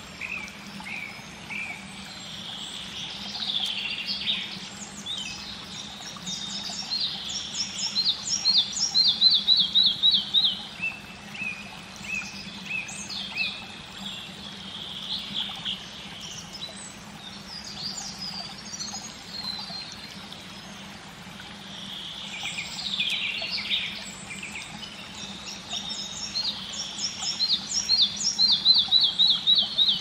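Red-breasted flycatcher singing: high thin notes and short phrases, twice building to a loud run of quickly repeated notes falling in pitch, about eight seconds in and again near the end. A faint steady low hum lies underneath.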